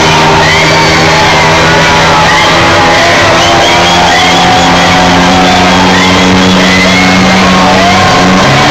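Very loud dance-floor music with a crowd shouting and whooping along.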